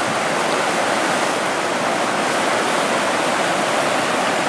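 Fast mountain river rushing over shallow rapids: a loud, steady wash of whitewater.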